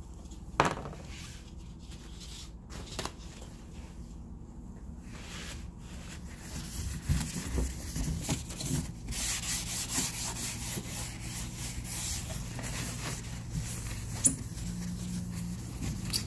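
Rubbing and scraping with light clicks from an HDMI connector being worked in and out of its port, with a sharp click about half a second in and busier handling in the second half.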